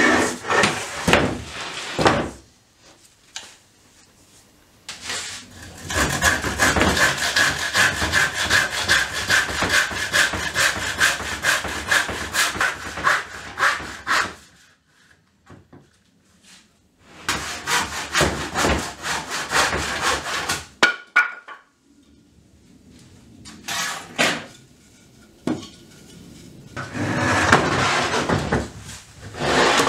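Handsaw cutting into the joints of an old wooden window frame: a long run of quick back-and-forth strokes lasting about nine seconds, then a shorter run after a pause. Wooden knocks and scraping as the frame is handled on the workbench come at the start and again near the end.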